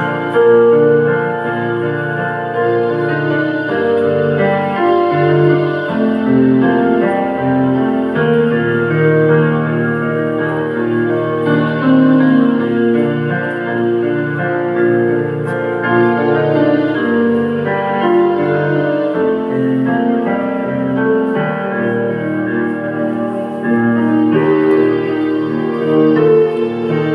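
Keyboard music in piano and organ voices, slow held chords and melody notes changing every second or two at an even level.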